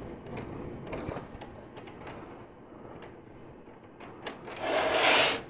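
Plastic LEGO Technic pieces clicking and rattling as they are handled and fitted, with a louder rattling burst of under a second near the end.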